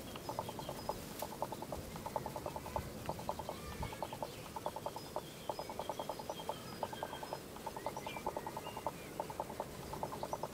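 Outdoor ambience: a rapid pulsing rattle, about ten pulses a second, comes in trains roughly a second long, one after another, with faint bird chirps above it.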